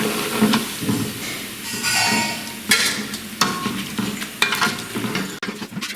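Flattened rice (aval, poha) frying in hot oil, sizzling as it is stirred, with a few sharp knocks of the stirring utensil.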